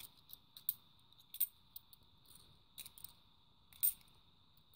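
Fifty-pence coins clinking and sliding against each other in a hand as they are shuffled one at a time: light, scattered metallic clicks, the sharpest a little before the end.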